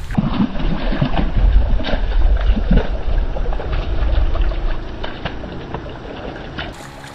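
A hooked fish thrashing on the line at the water's surface, with many quick splashes over a low rumble. The splashing dies down toward the end.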